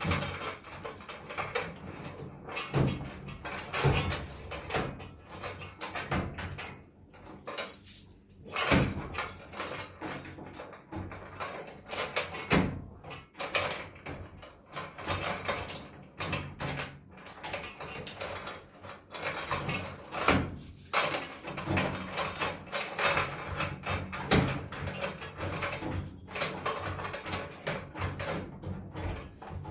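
A key jiggled and twisted in a drilled-out metal filing cabinet lock: irregular metallic clicks, scrapes and rattles throughout, as the lock still won't turn.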